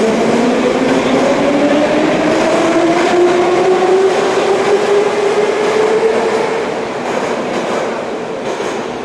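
Metro train pulling out of a station: the traction motors give a whine that rises steadily in pitch as the train accelerates over running-gear noise. The sound fades somewhat in the last couple of seconds as the train moves off.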